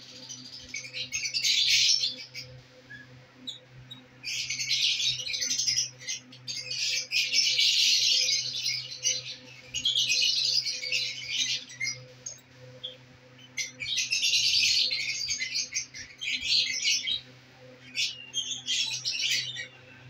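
A flock of caged lovebirds chattering in about seven bursts of rapid, shrill high chirps, each one to three seconds long with short gaps between. A faint steady low hum runs underneath.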